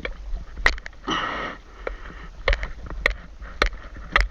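A person breathing hard with a loud, hissing breath about a second in, mixed with about six sharp knocks or clicks spaced irregularly.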